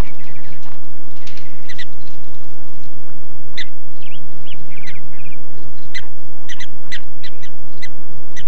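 Prairie dogs chirping: scattered short, sharp high calls, some in quick runs of two or three, over a low steady rumble.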